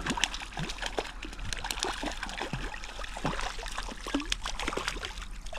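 A hooked trout splashing at the water's surface as it is played on a fly rod toward the net: a run of short, irregular splashes.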